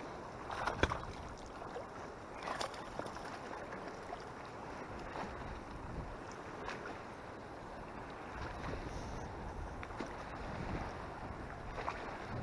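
Strong wind buffeting the microphone over choppy lake water lapping and sloshing, with a couple of short sharp knocks about one and two and a half seconds in. The low wind rumble grows heavier in the last few seconds.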